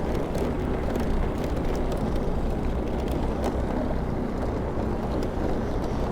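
Steady rumble and wind rush from riding a bicycle along a paved path, with a few faint light ticks.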